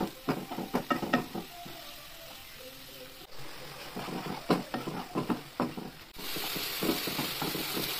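A spatula stirring and scraping masala paste around a non-stick frying pan, with clicks and scrapes against the pan over frying in hot oil. About six seconds in, a louder, steady sizzle takes over as ground tomato fries in the pan.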